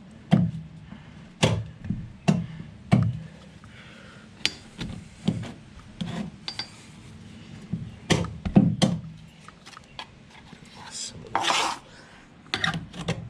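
A series of irregular knocks and taps, about a dozen, with a short rushing noise about eleven seconds in.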